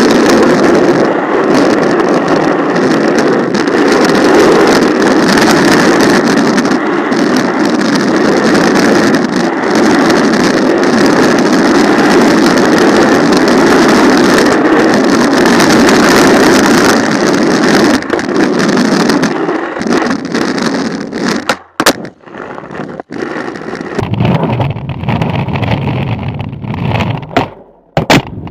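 Skateboard wheels rolling over asphalt, picked up by a camera strapped under the deck: a loud, steady rolling noise with rattles and sharp clicks. About twenty-one seconds in it becomes quieter and uneven, broken by more sharp clicks.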